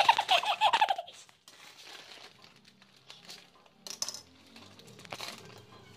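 Plastic instant-noodle packets crinkling as they are handled and cut open with a knife, with scattered light clicks and taps. A voice is heard over the rustling in the first second, then only faint crinkles and taps.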